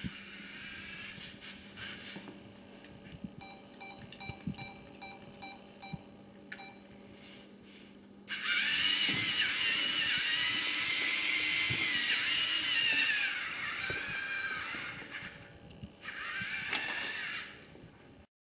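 LEGO Mindstorms NXT race car's servo motors and gear train whining loudly as the car drives at speed. The whine starts suddenly about eight seconds in, wavers in pitch, and stops and starts again near the end. Before it, a quick run of short electronic beeps.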